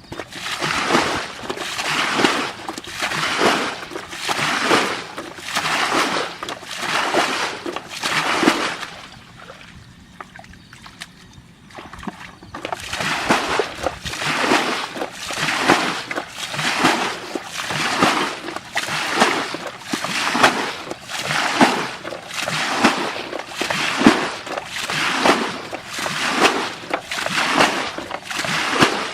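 Rhythmic splashing in water, a bit more than one splash a second. It stops for about four seconds partway, then starts again at the same pace.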